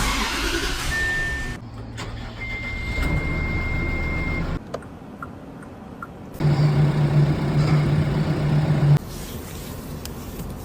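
Loader backhoe's diesel engine running, heard in several short segments that cut abruptly from one to the next. About two seconds in, a thin steady high whine sounds for a couple of seconds.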